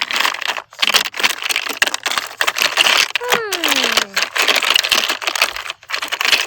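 Crunchy slime being squeezed and worked, giving dense crackling and clicking in clumps. A falling, whistle-like tone sounds once around the middle.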